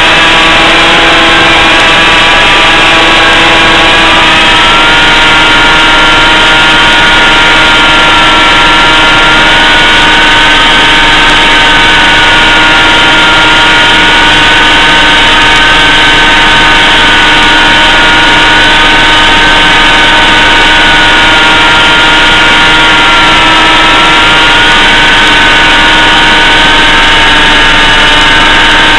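BlitzRCWorks Sky Surfer RC plane's electric motor and propeller running with a steady, loud whine. One tone drops in pitch about a second in, climbs back by about five seconds, then wavers gently up and down.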